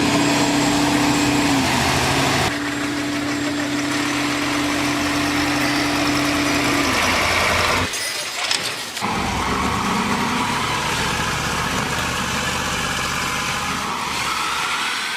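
Heavy truck engines running steadily under load, with a held hum; the sound changes abruptly twice where the footage is cut between clips.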